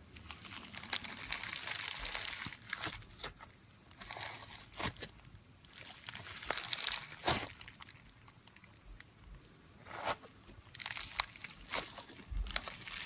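Slime being squeezed and pressed by hand, crackling and popping in irregular bursts with sharp clicks and short pauses between them.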